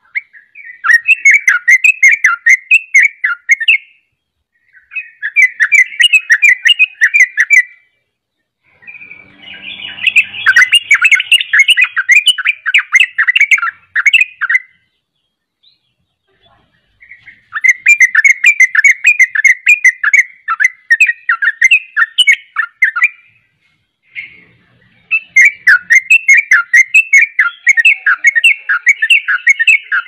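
Caged yellow-vented bulbul (trucukan) singing in long runs of rapid chattering notes. There are five bouts of about three to six seconds each, separated by short pauses.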